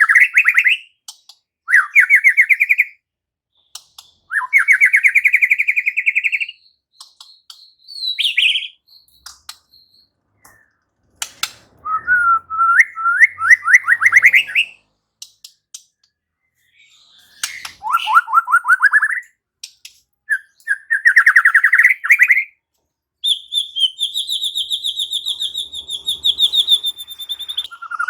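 White-rumped shama (murai batu) singing: phrases of rapid repeated notes, each sweeping upward in pitch, broken by short pauses. Near the end comes a long, high trill held on one pitch.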